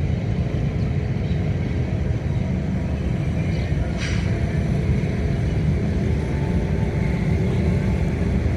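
Pakistan Railways GEU40 diesel-electric locomotive running, a steady low rumble, with one brief sharp higher-pitched sound about four seconds in.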